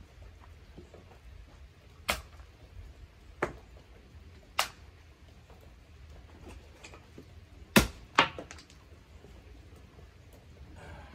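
Hard wooden knocks from splitting hardwood firewood by hand: five sharp strikes, the two loudest about half a second apart near the end.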